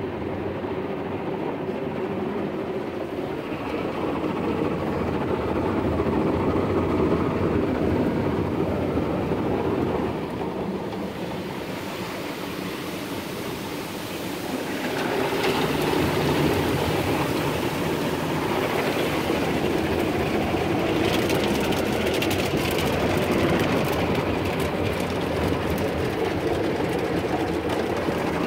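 Ryko SoftGloss Maxx 5 soft-cloth car wash heard from inside the car: spinning cloth brushes scrubbing and slapping against the glass and body, with water spraying over it, a steady dense rumble. It grows louder and brighter about halfway through as the brushes pass over the windows, with a fast patter of strikes in the last part.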